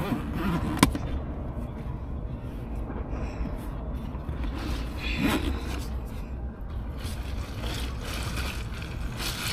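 A YETI soft cooler being handled and opened: scraping and rustling of its fabric body and lid, with a sharp click just under a second in. A steady low rumble runs underneath.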